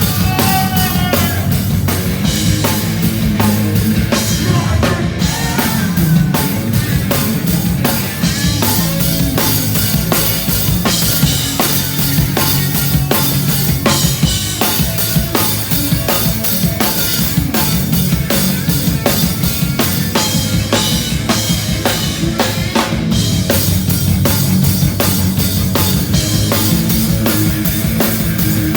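Live hardcore punk played loud: fast, dense drumming with snare and bass drum to the fore over distorted electric guitar and bass.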